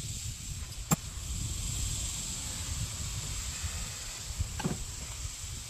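Hand tool on the alternator mounting bolts: one sharp metallic click about a second in and a second, more drawn-out clink near the end, over a steady high hiss and low rumble.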